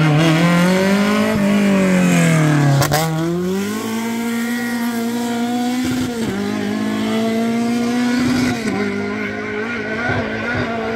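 Rally car engine at high revs: its pitch climbs and falls over the first few seconds, with a sharp crack about three seconds in, then holds nearly steady, dipping briefly twice.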